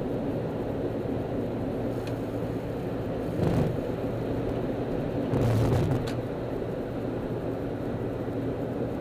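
Steady road and engine noise heard inside a car cabin at freeway speed, with two brief louder bumps about three and a half and five and a half seconds in.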